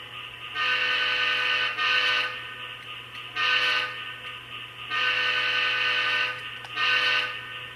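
Model GE B23-7 diesel locomotive's QSI sound decoder sounding a multi-note air horn through the model's small speaker: five blasts, the first and fourth long, the others short, over a steady background hum.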